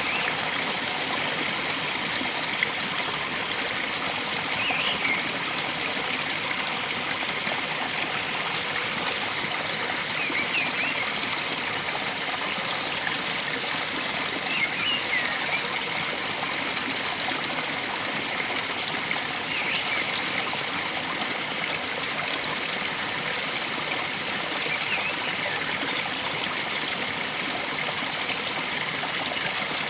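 Flowing stream rushing steadily, with short bird chirps every few seconds over it.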